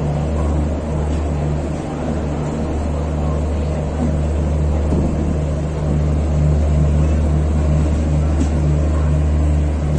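Steady low engine drone inside a passenger train coach: a deep, constant hum with a slightly higher tone that wavers on and off.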